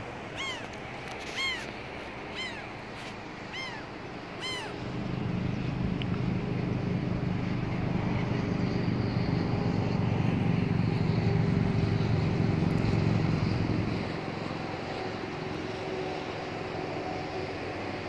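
Gull calling: short cries that rise and fall in pitch, about one a second for the first four or five seconds. Then a steady low vehicle rumble swells in and fades out about fourteen seconds in.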